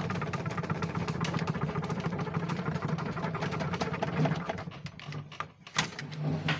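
Spin-dryer motor of a semi-automatic twin-tub washing machine running with a steady hum and fast rhythmic whirr, then dying down after about four and a half seconds, followed by a few short knocks. It runs because its brake, left clamped on the motor pulley by a snapped brake cable, is being held off by hand.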